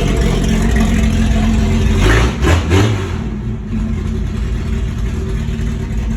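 1986 Ford XF Falcon's inline-six running with no exhaust fitted, idling loud and raw, with two quick blips of the throttle a little over two seconds in before it settles back to idle.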